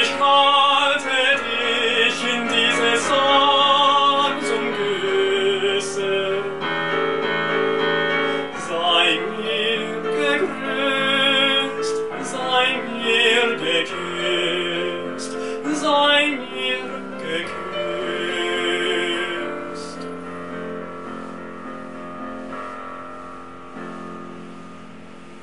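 A male classical voice sings with vibrato over piano accompaniment, closing an art song. The music ends about twenty seconds in and the sound dies away.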